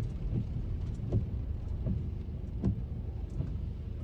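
A car driving on a wet road: a steady low road and engine rumble, with soft thumps at a regular beat about every three-quarters of a second.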